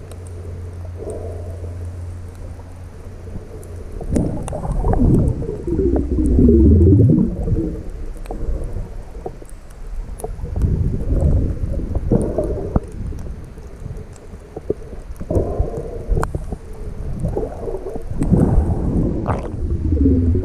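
A diver's exhaled air bubbles rumbling and gurgling past the camera underwater, in bursts every few seconds. A steady low hum runs under the first few seconds.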